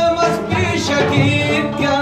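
Afghan Uzbek dambura music: the long-necked lute played with a voice singing over it.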